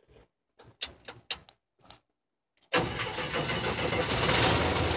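A few faint clicks from the ignition key, then about three seconds in the 1962 International Scout's four-cylinder engine starts abruptly and keeps running steadily. It is a cold start on full choke.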